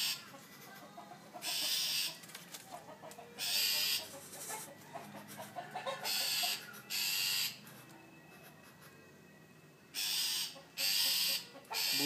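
Fowl clucking softly, broken by about seven short, harsh bursts of hiss, each about half a second long and a second or two apart.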